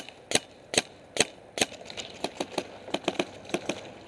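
Paintball markers firing: about five loud, evenly spaced shots in the first two seconds, then a faster run of fainter shots.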